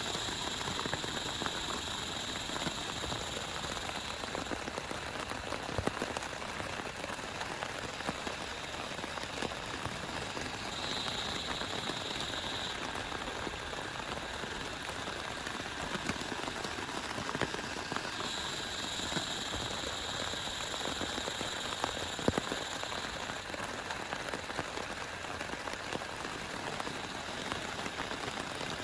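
Steady heavy rain falling, with individual drops ticking sharply here and there. A faint high, steady tone comes in and out three times.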